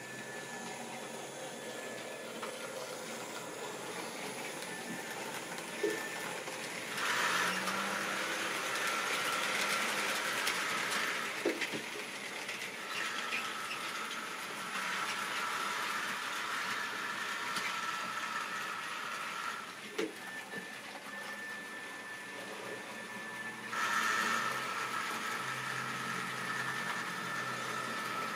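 Model railway trains running on the layout: an electric locomotive motor whining steadily with wheels rolling on the track and a few sharp clicks over the rails. The whine gets louder about seven seconds in and again near the end.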